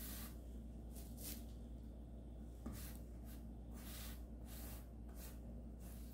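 Wide flat brush spreading thinned gesso across a stretched canvas: a series of soft scratchy bristle swishes, about one or two strokes a second, some in quick pairs, over a faint low hum.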